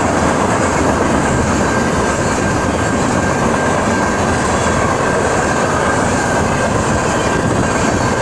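Train cars rolling past with steady wheel-on-rail noise and a faint, steady high tone above it.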